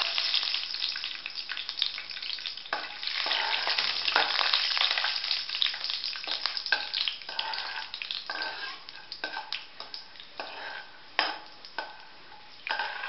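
Peanuts sizzling in hot oil in an aluminium kadhai, stirred with a perforated metal slotted spoon that scrapes and clicks against the pan. The sizzle is strongest at first and dies down over several seconds, leaving scattered clicks of the spoon on the metal.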